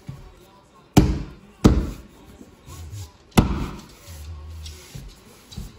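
Three sharp knocks as Traffic Master laminate floor planks are bumped and set into place: one about a second in, a second shortly after, and a third about three and a half seconds in.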